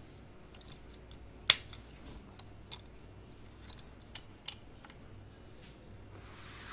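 Plastic clicks and snaps of a Transformers Bumblebee action figure's parts being folded and pressed into place by hand: one sharp snap about a second and a half in, then several lighter clicks. A soft rustle of hands on the toy near the end.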